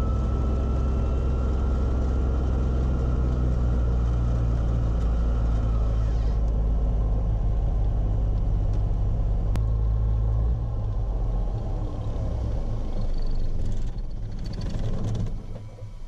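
1952 Beechcraft Bonanza's six-cylinder piston engine running at taxi idle, heard from inside the cockpit. About ten seconds in it gets quieter and uneven, and it dies away near the end as the engine is shut down.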